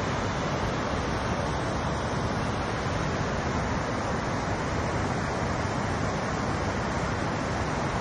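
Tsitsa River rushing over rock rapids and falling over Tsitsa Falls: a steady, even rush of water with no breaks.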